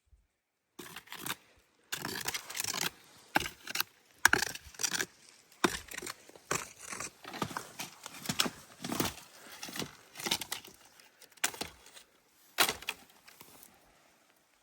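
Brush and branches crackling and rustling in irregular bursts, starting about a second in and thinning out near the end.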